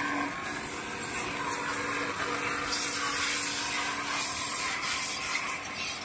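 TECH-TUL CC280 electric pressure washer starting and running: its 3 hp induction motor and brass plunger pump give a steady hum under a strong, even hiss.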